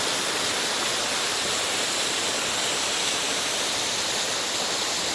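Water pouring down the Kapinovo waterfall: a steady, even rush of falling water.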